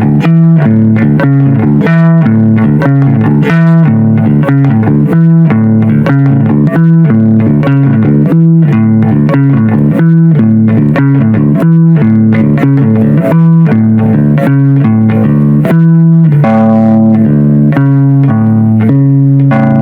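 Music: a repeating line of plucked-sounding, bass-register notes, a few notes a second, with no vocals.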